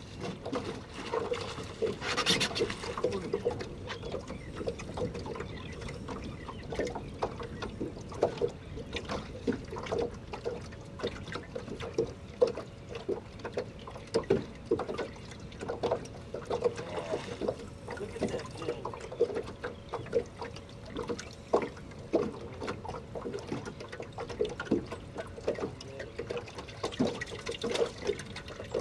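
Water lapping and trickling against a small boat's hull in small, irregular slaps, over a faint steady hum.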